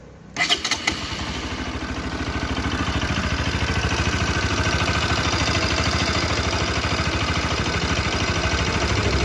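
Bajaj Pulsar RS200's single-cylinder engine starting about half a second in, with a few sharp bursts as it catches, then settling into a steady idle. It is the engine whose "tik tik" ticking noise is being shown as a problem.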